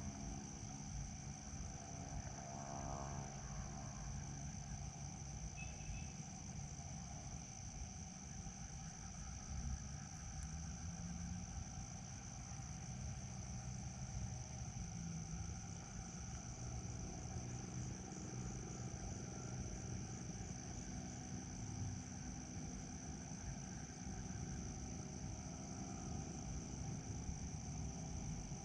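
Insects, likely crickets, chirring in a steady, unbroken high-pitched drone, over a low rumbling background noise.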